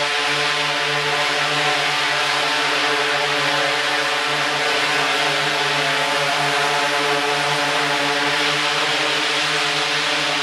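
DJI Inspire quadcopter's four electric motors and propellers running as it hovers and manoeuvres: a steady, pitched buzz over a strong hiss of propeller wash.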